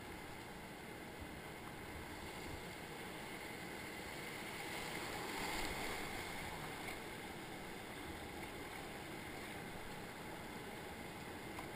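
Rushing whitewater of a river rapid heard from a kayak in the flow, a steady rush that swells about five to six seconds in as the boat runs through the waves.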